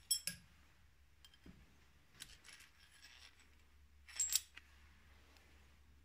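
Metal clinks and light scraping from a threaded-rod valve guide tool with its nut and washer being worked and drawn out of a valve guide bore in the cylinder head. Two short clusters of sharp clinks, one at the start and one about four seconds in, with faint scraping between.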